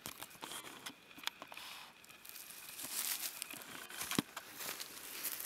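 Dry leaf litter crunching and rustling under footsteps, with scattered small clicks and one sharp knock about four seconds in.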